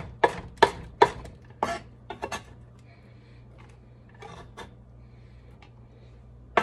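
Chef's knife chopping jalapeño on a wooden cutting board: quick sharp knocks about two and a half a second for the first second, then a few lighter taps and faint scraping as the chopped pepper is gathered up.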